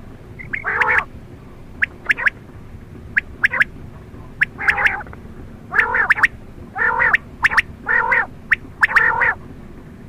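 Quail calling: a string of short calls, coming about once a second in the second half, with sharp clicks between them.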